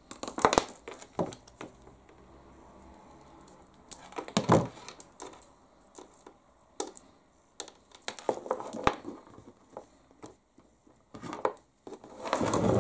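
Hands handling insulated wires and small electrical parts on a wooden workbench: rustling and scattered clicks and knocks. Louder handling noises come about half a second in, around four and a half seconds, and near the end.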